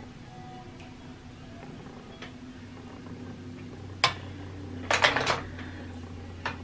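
Sharp clicks and a short clatter of makeup products and a brush being handled on a hard surface: one click about four seconds in, a quick run of clicks a second later, and another single click near the end, over a faint steady hum.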